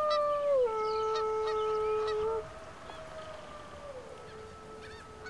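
A long, human-imitated wolf howl used to call wolves: one held note that steps down in pitch under a second in and breaks off about two and a half seconds in. A fainter howl of the same shape follows, also dropping in pitch about four seconds in.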